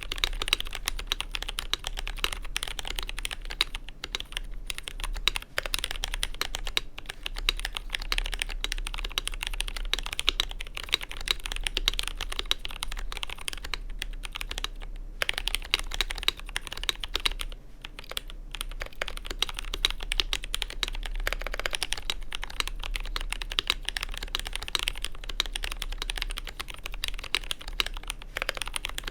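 Continuous fast typing on a custom GMMK Pro mechanical keyboard with Zealios V2 67g tactile switches in an FR4 plate: a dense run of keystroke clicks with a few brief pauses.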